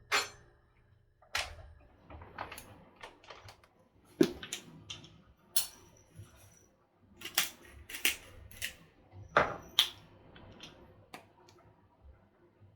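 Irregular sharp clicks and knocks of kitchen handling, about a dozen spread unevenly, some in quick pairs.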